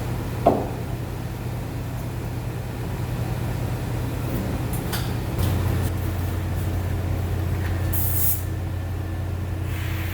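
Steady low drone of a running engine or machine, its pitch shifting about five and a half seconds in. A sharp knock comes about half a second in, and a short hiss of air around eight seconds in.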